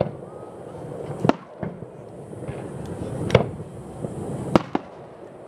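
Aerial firework shells bursting high overhead: three loud, sharp bangs a second or two apart, with fainter pops between them.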